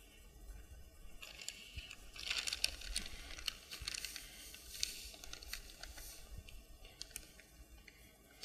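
Plastic sack of Postcrete crinkling as the dry post mix is tipped out and pours with a gritty patter around a concrete base block. Loudest from about two seconds in for a few seconds.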